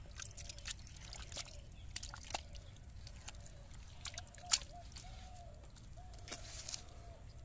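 Bare hands scooping and squelching through wet mud and muddy water in a dug hole, with irregular wet slaps and drips; one sharper slap about four and a half seconds in.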